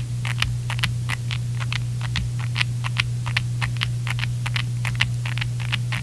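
Akko SPR67 mechanical keyboard being typed on: lubed Strawberry Milk tactile switches, tape-modded and fully foamed, giving irregular key clacks about five a second. A steady low hum runs underneath.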